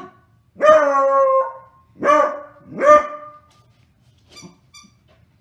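Beagle barking at a toy: a short bark, then one long drawn-out bark, then two more barks a little under a second apart, with a few faint high sounds near the end.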